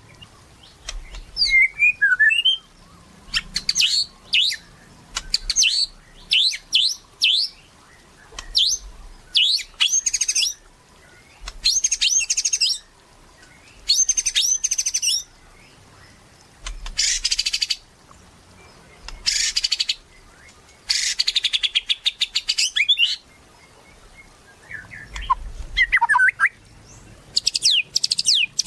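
White-rumped shama (murai batu) singing continuously in loud phrases: quick bursts of high, rapid trilling notes about a second long, separated by short pauses, with a few lower sliding whistles near the start and near the end.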